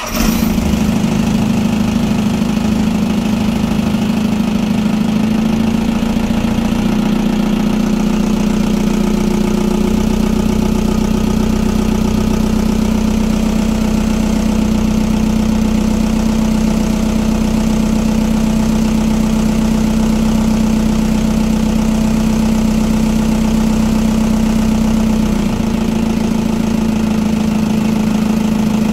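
One of a Coronet Deep Sea 32's twin carburetted V8 inboard engines firing up right at the start and then idling steadily.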